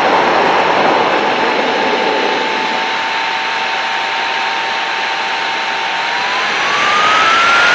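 Model jet's engine running steadily with a whine. About six seconds in the whine rises in pitch and gets louder as throttle is added.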